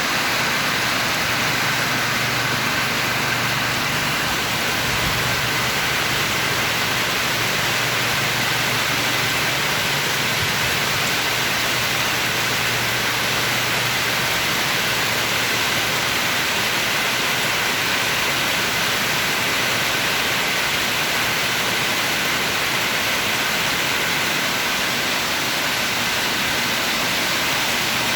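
Heavy rain falling steadily, a constant even hiss. A faint low hum runs under it through the first half and then fades out.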